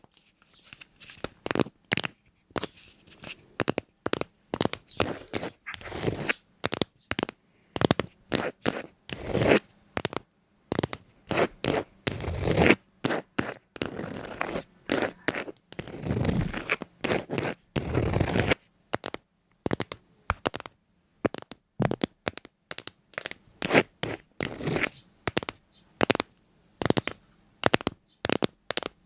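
Many short, scratchy noises in quick, irregular succession, each cut off by a brief moment of silence.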